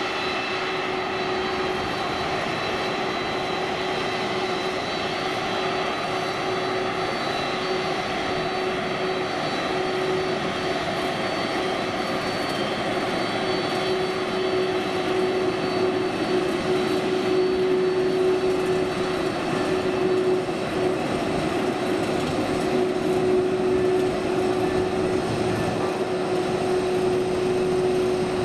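Boeing 767-400ER's twin General Electric CF6-80C2 turbofans running at taxi power: a steady jet whine over a broad rush of engine noise, with one low steady tone. It grows a little louder about halfway through as the jet passes close by.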